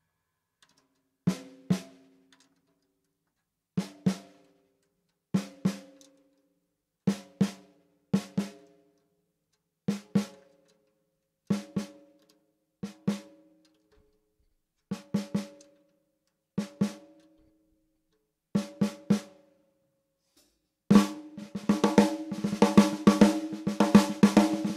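12x7 Australian wandoo stave snare drum struck in single and paired hits, each ringing briefly with a clear pitched tone, then played in a fast, continuous roll near the end.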